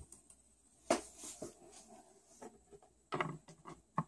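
Small plastic toy figures and accessories being handled and set down on a wooden tabletop: a few light clicks and taps, one about a second in and a short cluster around three seconds in.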